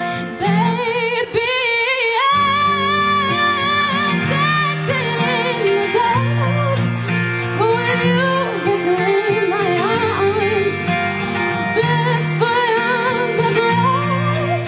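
A young female vocalist singing a song into a microphone, accompanied by a strummed guitar. Her sung melody wavers with vibrato over steady guitar chords.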